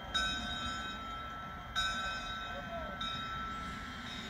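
Bell of W.W.&F. Engine No. 9, a two-foot-gauge steam locomotive, ringing as it pulls into the station: three strikes about a second and a half apart, each tone ringing on and fading, over the train's low rumble.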